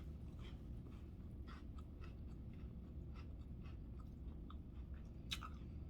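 Someone chewing a mouthful of Ritz crackers with chicken salad: faint, scattered crunches and mouth clicks, with one sharper click near the end.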